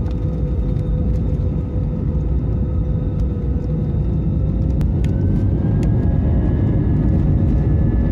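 Airbus A320 cabin during the takeoff roll: a loud, steady low rumble of engines and wheels on the runway, with a jet engine whine that starts rising in pitch about five seconds in as power builds. Light cabin rattles tick now and then.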